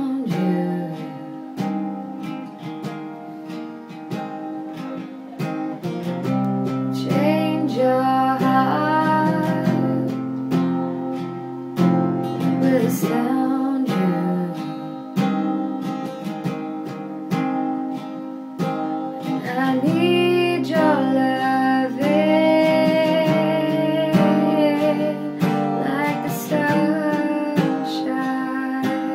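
Strummed acoustic guitar playing a slow song, with a singing voice carrying the melody over it at intervals.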